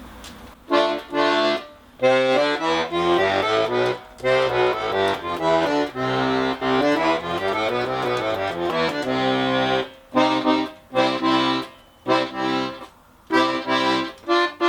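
Freshly repaired Etyud bayan (Russian button accordion from the Tula factory) playing a tune with right-hand melody chords over left-hand bass, in phrases with short breaks, ending with quick repeated chords. Its bellows compression is fair, about four out of five, because the left-side valves were not re-glued.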